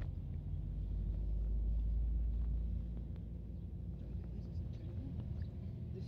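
Car running along a road, heard from inside the cabin: a steady low rumble of engine and road noise that swells about a second in and eases back about three seconds in.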